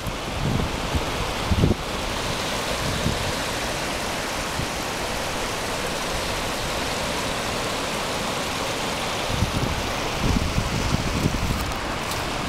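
Rough sea surf breaking and foaming over rocks in a steady wash of noise. Wind buffets the microphone in gusts about two seconds in and again around ten seconds in.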